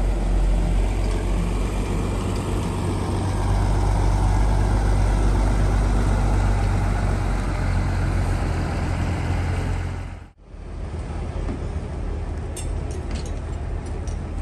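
Large coach's diesel engine running with a steady low rumble as the bus moves across the depot yard. About ten seconds in the sound cuts out briefly, and the engine gives way to quieter yard noise with a few sharp knocks near the end.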